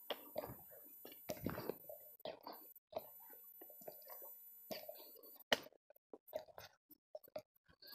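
Footsteps of a hiker walking down a dirt and leaf-litter forest trail, irregular scuffs and crunches, with one sharp knock about five and a half seconds in.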